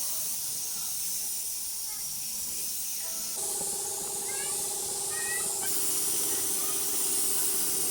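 Steady high hiss of a paint spray gun. A steady pitched hum joins it about three and a half seconds in.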